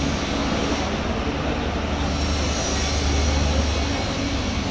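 Steady mechanical rumble with a constant low hum and an even hiss of noise over it, like running machinery in a large working hall.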